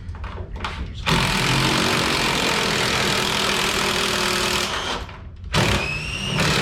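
Impact tool hammering on a bolt in two runs, the first about three and a half seconds and the second about two seconds with a slight rise in pitch. The bolts it is working on are stripped.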